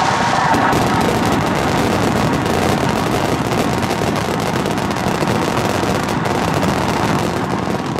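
Fireworks barrage: many shells and crackling stars bursting in rapid succession, the bangs and crackles overlapping into one continuous din.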